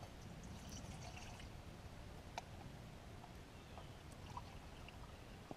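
Water being poured from a bottle into a small metal pot, faint, with a light click about two and a half seconds in.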